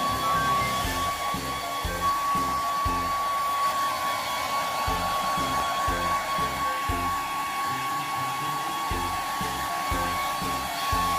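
Handheld electric hair dryer running steadily with a high whine and airy hiss, drying a wet puppy's coat. Background music plays underneath.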